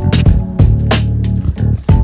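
Background music with plucked guitar, a bass line and a steady beat.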